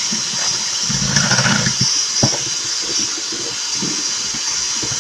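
Electric mixer running in a bowl of powdered-sugar and butter icing, a steady motor whir with scattered knocks of the beaters against the bowl.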